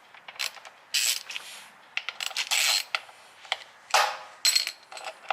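Metal clinks, clicks and scrapes of hand tools working the bolts of a motorcycle's primary derby cover, in short separate bursts.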